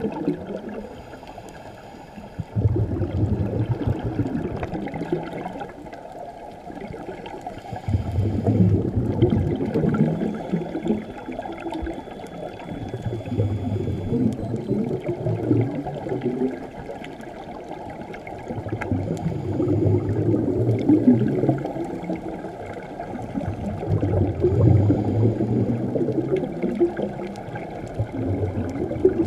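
Scuba regulator exhalation: bursts of bubbling and gurgling every few seconds as the diver breathes out underwater. The sound is muffled, with almost nothing above the low and middle range.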